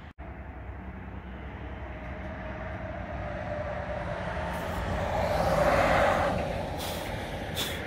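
Steady road noise of a moving vehicle, swelling to its loudest about six seconds in and then easing off, with two short clicks near the end.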